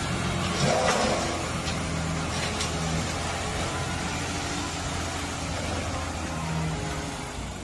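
Diesel dump truck engine running steadily while the tipper bed raises and a load of soil slides out onto the ground.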